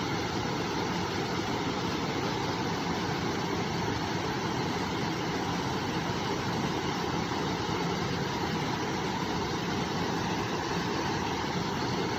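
River water flowing, a steady, unchanging rush.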